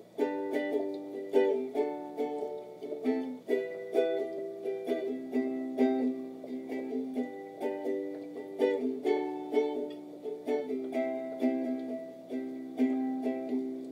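Ukulele strummed in a steady rhythm, the chords changing every second or two. The playing starts a moment in, after a brief pause.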